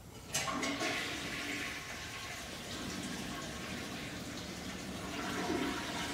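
Toilet flushing: a sudden rush of water about a third of a second in, then steady running water.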